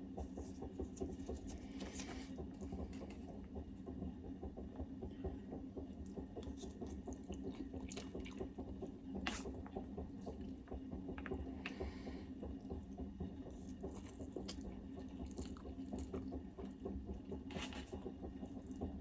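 A person eating quietly: faint chewing and scattered light clicks, with a low steady hum underneath.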